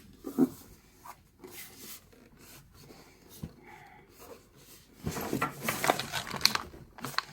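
Packaging and plastic parts of a newly unpacked electric inhaler being handled: a few soft clicks at first, then from about five seconds in, a louder stretch of rustling and crinkling.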